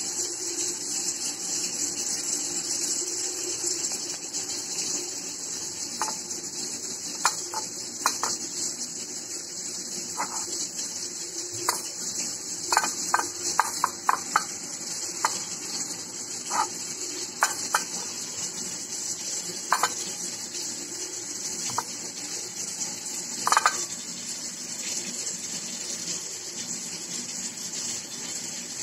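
Steady hiss with scattered light clicks and taps as sausages are handled and set down on a ceramic plate, most of them in a quick cluster around the middle.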